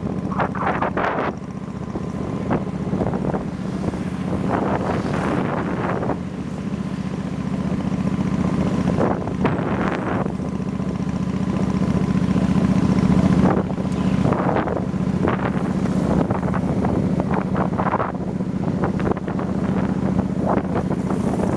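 Heavy wind noise buffeting the microphone of a riding motorbike, in gusts over the bike's steady engine drone.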